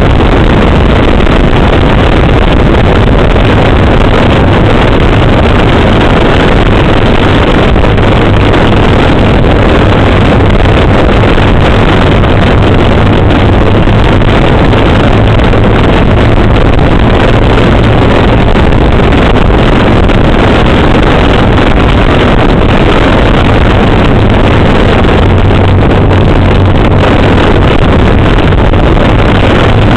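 BMW R1200GS boxer-twin engine running steadily at cruising speed on a dirt road, loud, with heavy wind buffeting on the camera microphone.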